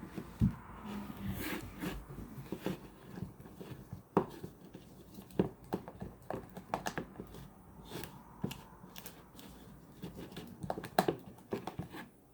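A spatula stirring a thick glue-based slime mixture, with irregular scrapes and clicks against the container.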